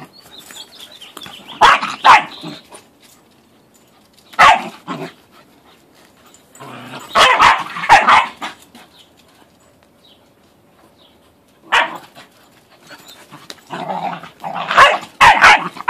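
Two young dogs play-fighting, barking in short loud bouts every few seconds.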